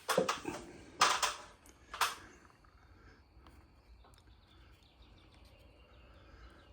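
Three short clattering rattles of small metal opener parts being handled and fitted, a gear going onto the bottom of a shaft, all within the first two seconds. After them only a faint background remains.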